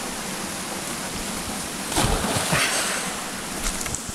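Steady rush of a mountain stream pouring over rocks into a pool. A louder, rougher surge comes about halfway through.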